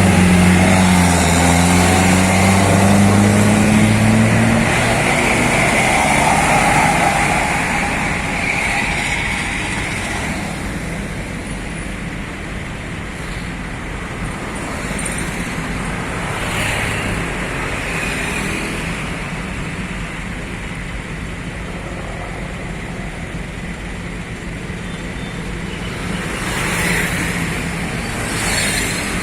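Road traffic passing on a highway. A heavy vehicle's engine hums loud and low for the first few seconds, its pitch dipping slightly as it passes. It then fades into steady traffic noise, which swells again near the end as another vehicle approaches.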